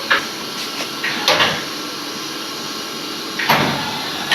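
CNC machining centre's automatic tool changer working through a tool change: three sharp mechanical clunks, near the start, about a second in and near the end, over a steady machine hiss.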